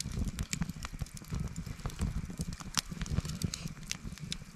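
Wood campfire crackling, with many irregular sharp pops and snaps over a low rumble.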